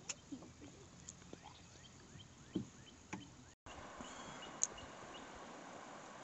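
Faint scattered knocks and taps in a canoe, with small bird chirps in the background. About halfway through the sound cuts out for an instant and gives way to a steady soft hiss with one short, high bird chirp.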